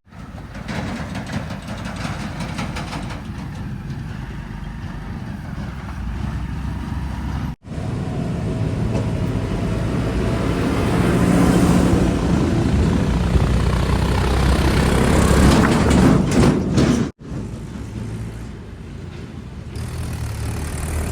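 Heavy diesel engines running, in three clips joined by sudden short dropouts; the engine sound builds through the middle clip and is loudest just before the second break.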